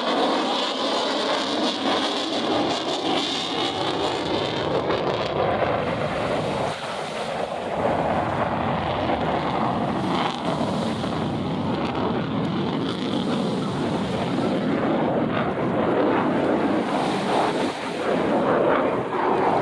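F-35 Lightning II fighter jet's engine noise as it flies past, with sweeping pitch shifts over the first few seconds, then a steady rushing noise. Wind on the microphone and surf mix in throughout.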